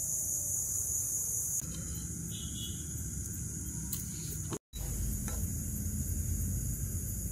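Crickets and other night insects chirring in a steady, high-pitched chorus, with a low rumble underneath. The sound drops out for a moment about four and a half seconds in.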